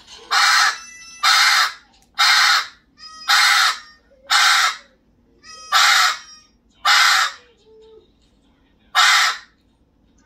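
Amazon parrot squawking: eight loud, harsh calls about a second apart, with a longer pause before the last.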